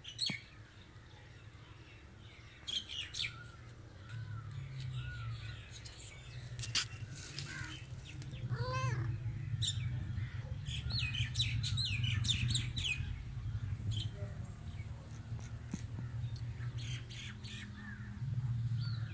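Small birds chirping and twittering in short high calls, scattered throughout, over a steady low rumble that grows louder about four seconds in.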